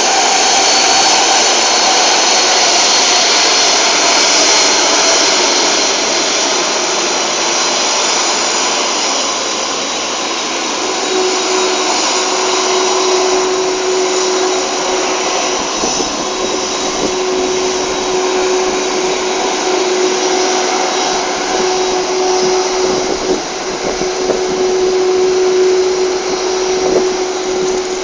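Jet airliner engines running, a loud steady rush with a high whine over it, and a lower steady hum that joins about a third of the way through.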